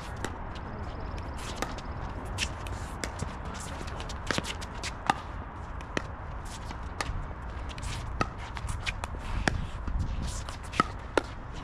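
Pickleball rally: paddles hitting the hollow plastic ball in a long run of sharp pocks, about one a second, with shoes shuffling and scuffing on the hard court between hits.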